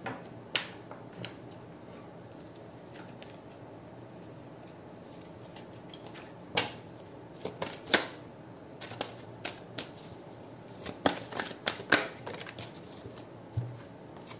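Oracle cards being shuffled and handled by hand: a few scattered card clicks early, then many quick flicks and snaps of card stock over the second half.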